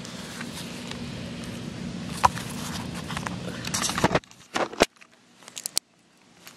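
Steady outdoor background noise with a low hum, with light taps and clicks of handling as a shoe is set down on a canvas board. The background cuts off suddenly about four seconds in, leaving a few sharp clicks over near quiet.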